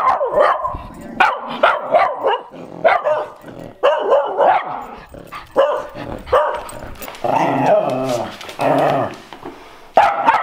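Dogs barking at each other through a wall in a loud, rapid string of barks, with longer drawn-out calls about three-quarters of the way through. The small dog has come to pick a fight with the neighbour's dog, which answers from behind the wall.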